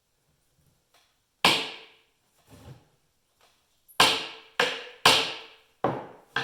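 Hammer blows on metal: one sharp strike about a second and a half in, then five more in quick succession near the end, each with a short metallic ring. Striking a driver to break loose a stuck window-frame screw, which then turns out.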